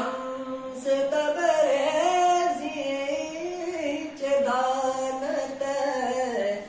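A man singing a Farsi Sufi kalaam solo: long held notes with melodic ornaments, in phrases with brief pauses about a second in and around four seconds in.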